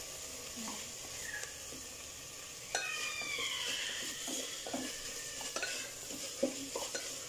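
Onions and tomatoes sizzling in a pressure cooker while a spatula stirs and scrapes them, with a few light knocks against the pot from about three seconds in.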